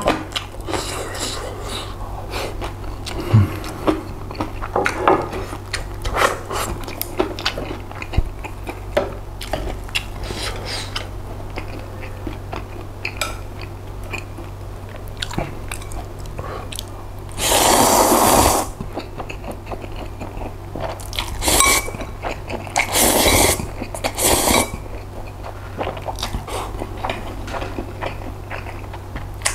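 Close-miked eating: chewing and crunching with many small clicks, then a loud slurp of noodles lasting about a second a little past the middle, followed by a few shorter slurps.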